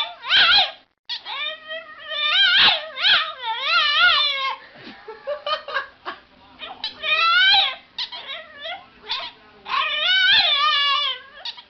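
An animal crying out over and over in drawn-out calls whose pitch wavers up and down, with short pauses between them.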